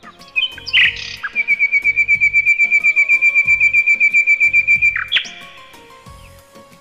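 A songbird's fast trill of high chirps, about eight a second for some four seconds, with a few short chirps just before it. Soft background music with a steady beat runs underneath.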